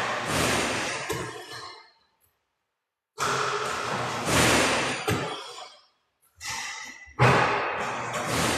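Basketball shooting sounds in an echoing gym: the ball, rim and net and the ball-return machine, one shot after another. They come as bursts about four seconds apart, each starting suddenly and dying away, with silence between.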